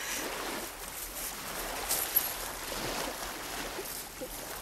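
Sea water lapping and washing at a shoreline, a steady noisy wash, with one sharp click about two seconds in.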